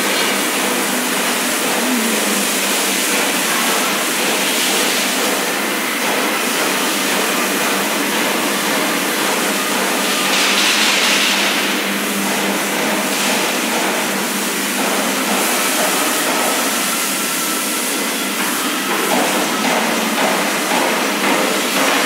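Steady, loud whirring noise of running factory machinery and fans, with a few faint steady tones in it. Irregular light knocks and clatter come in near the end.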